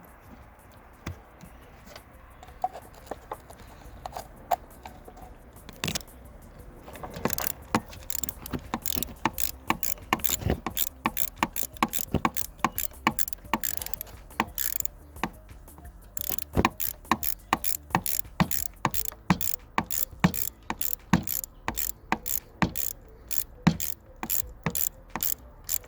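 Ratchet wrench clicking as a bolt is turned: a few scattered clicks at first, then quick, rhythmic runs of clicks from about a quarter of the way in.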